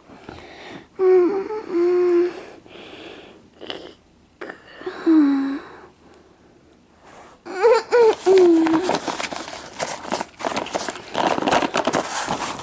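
A child's voice making three wordless, drawn-out vocal sounds, each with a bending pitch. After them, a dense stretch of rustling and clattering runs on to the end.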